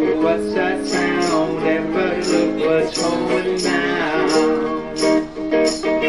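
Live busking: a man singing into a microphone while strumming an acoustic guitar in a steady rhythm.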